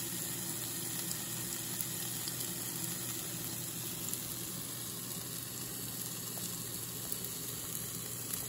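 Steaks sizzling on the hot grate of a Philips Smoke-less Indoor Grill: a steady hiss with a few light crackles as grease splatters and drips.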